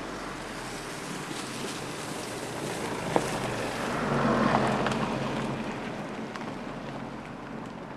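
Mitsubishi ASX SUV driving slowly past on a dirt forest track, its engine and tyres growing louder to about halfway and then fading as it moves away. A single sharp crack a little over three seconds in.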